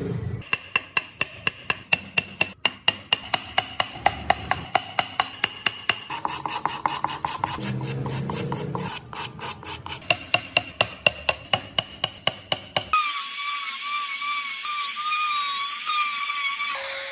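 Wood being worked by hand with a rasp or file in quick, regular strokes, about four a second. Near the end the strokes stop and a steady whine with a slightly wavering pitch takes over for about four seconds.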